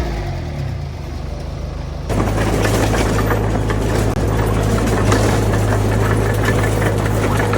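D20 bulldozer's diesel engine running. Its pitch sinks in the first second, then about two seconds in the sound turns abruptly louder: a steady engine with a dense, rapid metallic clatter.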